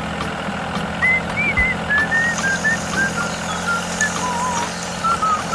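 A whistled tune wandering up and down in pitch, with a steady whirring hum underneath like a small electric motor running a toy machine.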